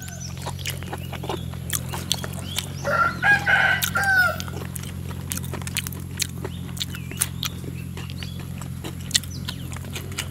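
A rooster crows once, about three seconds in, for about a second and a half. Throughout, there are close, wet chewing and mouth clicks from someone eating raw beef with fresh greens, over a steady low hum.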